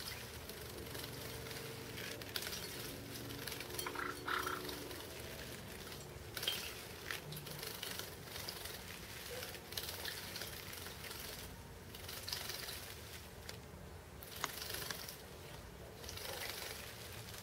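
Java sparrows bathing in a shallow bowl of water, splashing and fluttering their wet wings in irregular short bursts.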